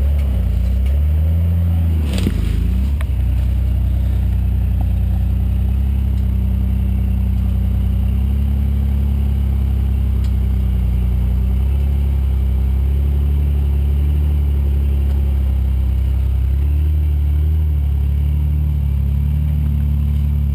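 A four-wheeler (ATV) engine running close by at a steady low speed, its pitch rising and falling slightly, with a short clatter about two seconds in.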